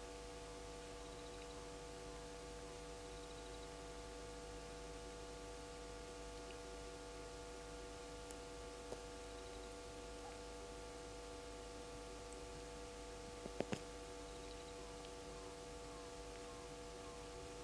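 Faint steady hum made of several constant tones, with a soft high chirp now and then. A quick cluster of two or three sharp clicks comes a little past halfway.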